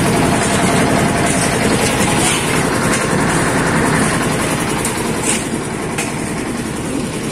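Concrete mixer's engine running steadily, with a few brief knocks over the top.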